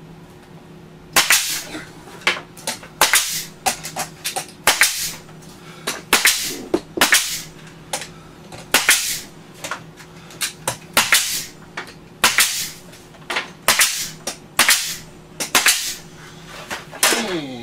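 Pneumatic brad nailer firing nail after nail into a wooden window ledge frame. Each shot is a sharp crack with a short ring, about one to two a second, starting about a second in.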